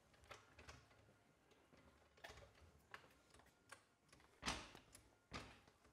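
Faint light clicks and taps of a floor jack being set under the car, then two louder clunks about a second apart near the end as its handle is worked.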